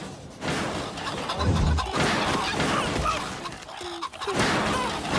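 Cartoon slapstick sound effects: a dense run of crashes, bangs and thuds, with one heavy thud about a second and a half in.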